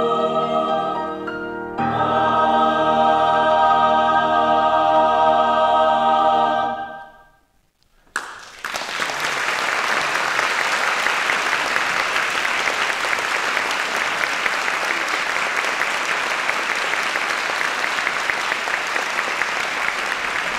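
Mixed choir with piano sings a closing chord that changes about two seconds in and is released, dying away by about seven seconds. After a moment of quiet, audience applause starts just after eight seconds and continues steadily.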